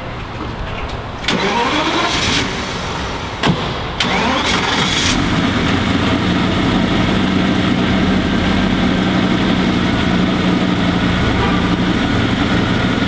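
Ferrari F50's V12 being started in a parking garage. A first burst of cranking comes about a second in, then the engine catches about four seconds in with a short rev and settles into a steady idle.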